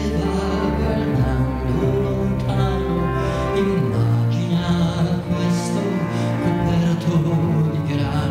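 A small ensemble playing live, with accordion and keyboard, in sustained notes without a break.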